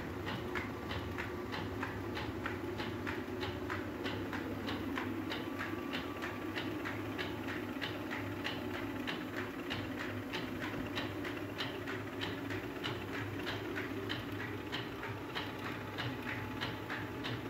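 Traditional stone flour mill grinding wheat: a steady low rumble from the turning millstones, with an even, rhythmic clacking a little over twice a second.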